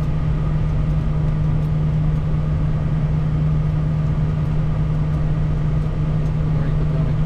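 Steady cockpit noise of a Bombardier Challenger 350 business jet in the climb after takeoff: engine and airflow noise with a strong, steady low hum.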